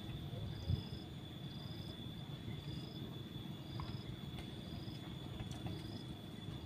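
Insects calling: a steady high whine with a short rising chirp repeating about once a second, over a low background rumble. A single soft knock about a second in.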